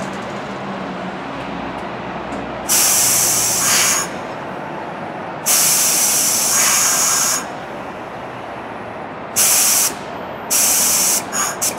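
Compressed air hissing in loud bursts: four longer releases of half a second to two seconds each, then two short puffs near the end, over a steady low rumble. This is air exhausting from electro-pneumatic switch machines as the track switches are thrown.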